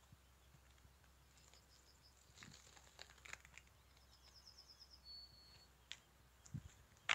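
Near silence outdoors: a faint high thin whistle and a short quick trill, a few soft scattered rustles and crunches around the middle, and a dull low thump near the end.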